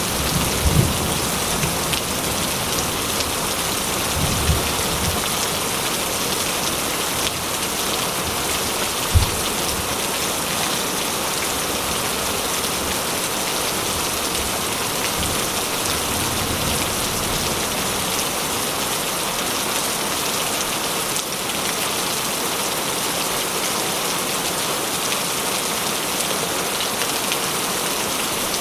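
Steady heavy rain falling, a dense even hiss, with a few short low rumbles of thunder in the first ten seconds or so.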